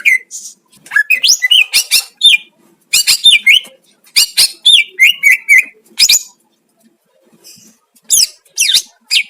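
Cucak ijo (green leafbird) singing: quick bursts of loud, sweeping whistled notes and chirps, with a pause of about two seconds after the middle.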